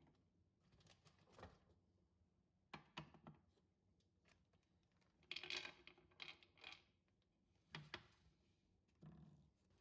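Faint, scattered handling noises: a few soft rustles and light taps, the loudest a brief rustle a little past the middle.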